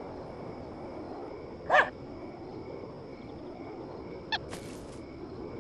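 A cartoon character's short, high vocal yelp about two seconds in, then a briefer chirp and a quick hiss near the end, over a steady background hiss.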